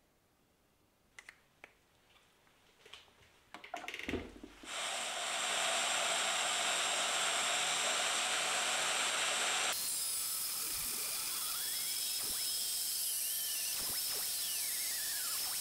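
Band saw cutting through a steel axe head. After a few faint clicks and knocks, a steady loud cutting noise starts about five seconds in. In the second half it changes, with a wavering high squeal gliding up and down.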